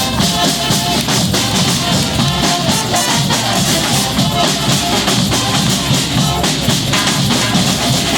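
Brass band playing live: horns carrying a tune over a steady, driving drum beat with bass drum and snare.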